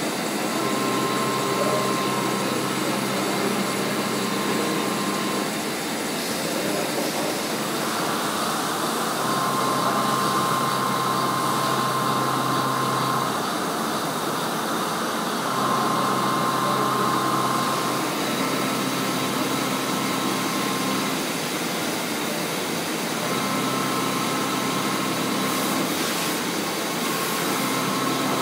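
CNC milling machine cutting Hastelloy with a 16 mm four-flute end mill at 1900 rpm under coolant. A steady hiss runs under a low hum and a higher tone, and these come and go in stretches of a few seconds as the cut goes on.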